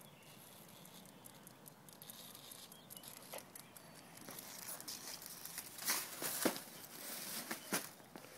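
A newspaper rustling and crinkling as a dog picks it up and carries it in its mouth. It comes as a series of short crinkles, loudest in a cluster about six seconds in.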